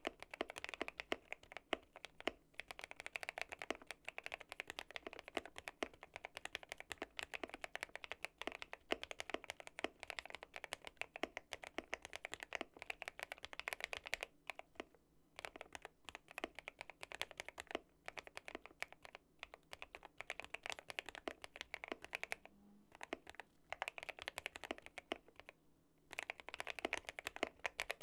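Typing on a modded GMMK Pro mechanical keyboard fitted with linear switches, a polycarbonate plate and PE foam: quick runs of keystrokes with a few brief pauses.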